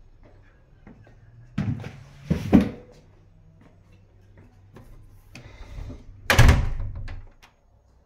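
Interior door being handled: a few knocks and thuds about two seconds in, then a louder thump with a short rattle about six and a half seconds in.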